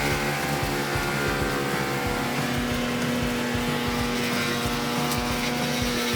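Morbark M15R wood chipper's engine running steadily, a droning hum with a held tone that strengthens about two seconds in.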